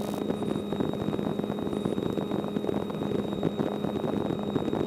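Light aircraft's piston engine and propeller droning steadily in cruise flight, heard inside the cockpit, with an even hum at a constant pitch.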